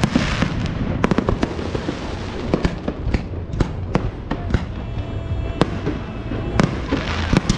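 Aerial fireworks display: about a dozen sharp, irregularly spaced bangs and cracks from bursting shells, over a steady low rumble.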